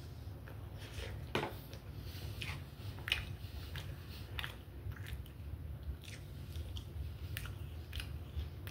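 A person biting into a chicken Big Mac and chewing it, with sharp wet mouth clicks at irregular moments, roughly one a second.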